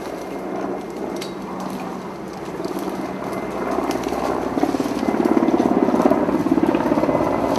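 A motor engine running with a fast, even pulsing beat, growing louder from about halfway through.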